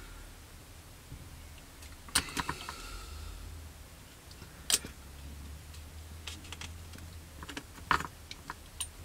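Scattered light clicks and taps of plastic model-kit parts and tools being handled on a workbench, the sharpest about halfway through and near the end, over a low steady hum.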